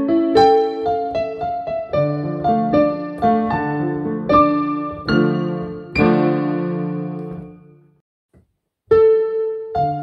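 Digital piano played by hand: a slow melody over low chords. A chord is held and left to fade about six seconds in, there is a short silence, and the playing resumes near the end.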